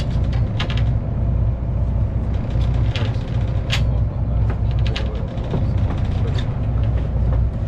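A boat's engine running with a steady low rumble, with scattered clicks and knocks from the deck; the sharpest knock comes a little before halfway through.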